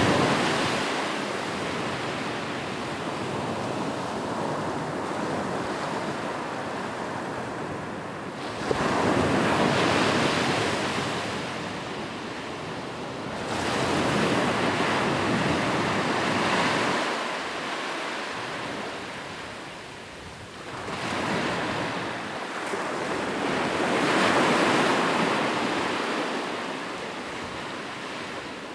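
Ocean waves breaking and washing back over a shore. The surf rises and falls in slow surges several seconds apart, with one wave crashing in sharply about nine seconds in.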